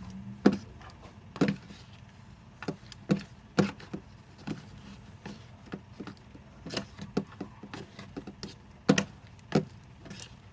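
A mixing tool stirring slime of glue and Tide detergent in a bowl, knocking and clicking against the bowl in irregular taps about once a second, the loudest pair near the end.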